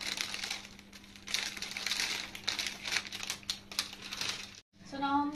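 Clear plastic packaging crinkling and rustling as packets of craft supplies are handled, with small sharp clicks of items being set down. It stops about four and a half seconds in.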